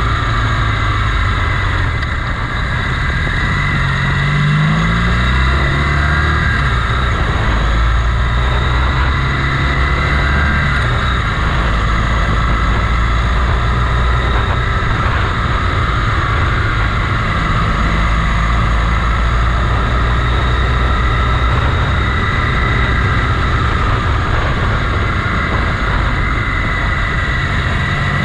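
Motorcycle engine running while riding, over a steady rushing noise. The revs climb about four seconds in and drop again, then hold fairly steady.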